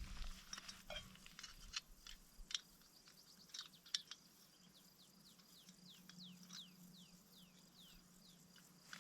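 Faint small bird calling: a run of about ten short, high notes, each sliding downward, two or three a second, preceded by a few faint sharp clicks.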